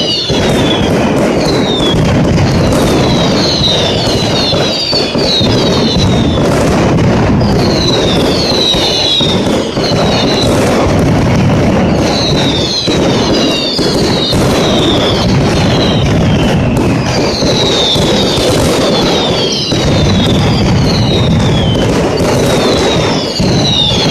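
Mascletà firecracker barrage: a dense, continuous rattle of loud firecracker bangs, with many short falling whistles coming in clusters over it.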